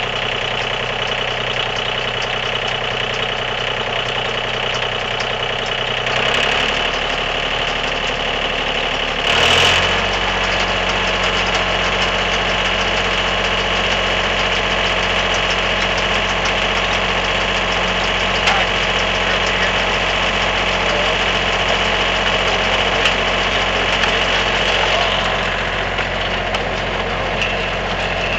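An engine running steadily. Its note shifts about six seconds in, and after a brief louder burst near ten seconds in it settles onto a steady lower hum.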